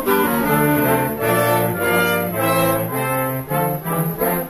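Wind band playing, clarinets and brass together over a moving bass line, with a run of short detached notes near the end.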